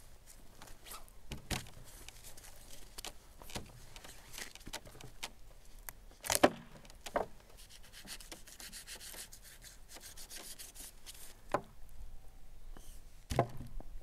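Knife cutting through a raw lamb carcass, with meat rubbing and scraping on a wooden table. Several dull knocks on the wooden tabletop as the meat is handled, the loudest about six seconds in.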